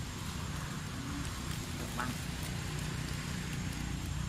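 Steady outdoor background noise with a low rumble, a few faint ticks and one short rising squeak about two seconds in.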